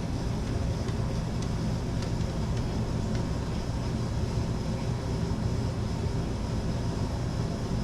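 A steady low rumble with a hiss over it, constant without breaks.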